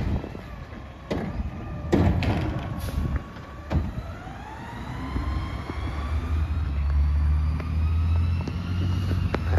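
Garbage truck driving and accelerating: a whine rises steadily in pitch and the engine rumble grows louder over the second half, after a few clanks in the first few seconds.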